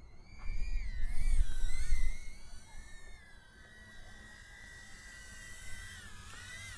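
Tiny whoop FPV drone's brushless motors and propellers whining, the pitch rising and falling with the throttle, then holding steadier. Wind buffets the microphone with a low rumble for the first two seconds.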